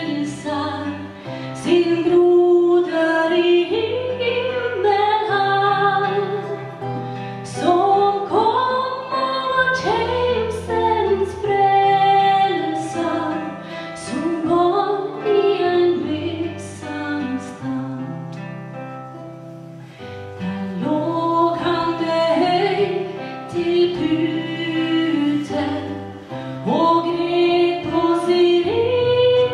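A woman singing a slow Christmas song live, accompanied by keyboard and acoustic guitar in a church. The music eases off briefly about two-thirds of the way through, then the singing picks up again.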